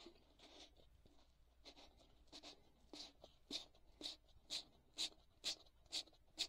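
Faint back-and-forth scratching of 600-grit sandpaper rubbed by hand over an epoxy-coated 3D-printed trumpet mute, about two strokes a second and getting louder toward the end. The glossy epoxy is being roughed up so that the cork's adhesive will grip.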